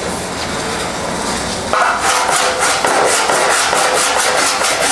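Hand file rasping across a welded steel fender panel in quick, even strokes, about five a second, starting about two seconds in. The sheet metal rings under the strokes as the file takes down the high spots of the planished TIG weld.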